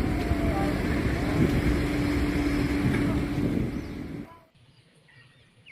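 Water splashing and running over a toy as it is washed, with a steady low hum underneath; it stops abruptly about four seconds in.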